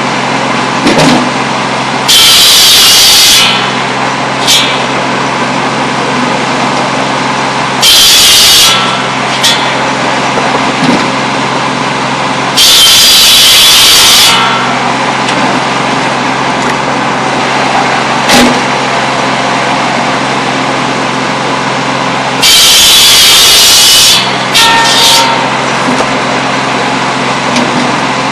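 Cordwood buzz saw running steadily, its big circular blade biting through pole wood four times. Each cut is a loud rasp lasting about one and a half to two seconds, with short knocks of wood being handled between the cuts.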